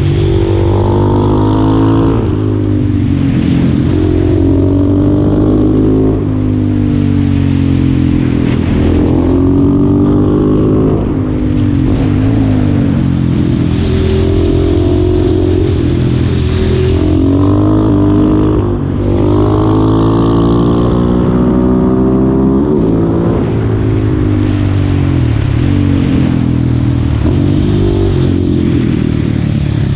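Husqvarna 701 Supermoto's single-cylinder engine with an Akrapovic exhaust, ridden hard: the engine note climbs and falls over and over, with brief drops between the runs.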